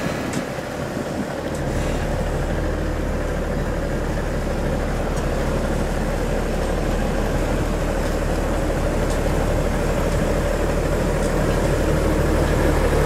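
New Holland T7030 tractor's six-cylinder diesel engine running steadily under work, a low even drone that dips briefly near the start and then grows a little louder.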